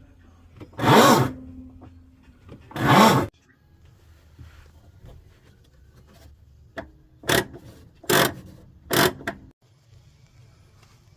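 Whirlpool washing machine grinding loudly in separate bursts over a low steady hum: two long grinds near the start, then four shorter ones in quick succession later on. The grinding is typical of a worn splutch that can no longer grip the drive.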